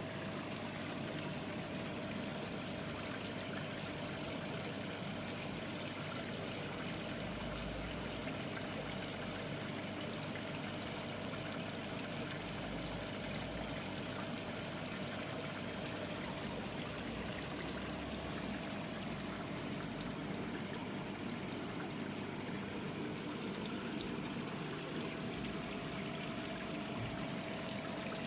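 Steady running water in a koi pond, pouring and trickling without a break, with a faint steady hum underneath.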